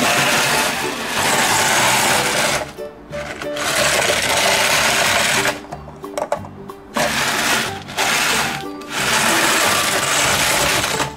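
Small gravel stones crunching and grinding under the plastic wheels of a toy bus pushed along by hand, in four stretches of about two seconds each with short pauses between. Background music plays underneath.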